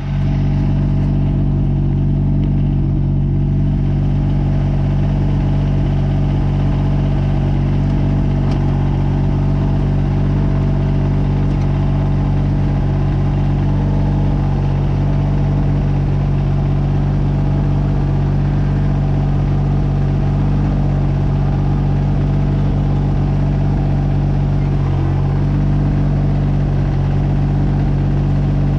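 A 2003 Kubota BX22 compact tractor's three-cylinder diesel engine running steadily at a constant speed.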